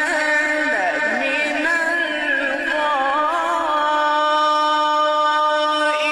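Background music with singing: a wavering, ornamented vocal melody over steady held tones.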